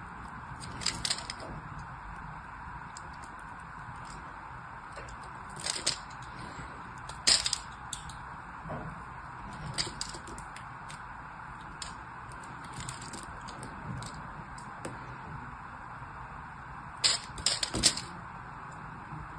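A knife blade carving a bar of soap, with crisp, irregular crackles and snaps as small cubes and slivers break off. The clicks come singly and in short runs, with a quick cluster of several near the end.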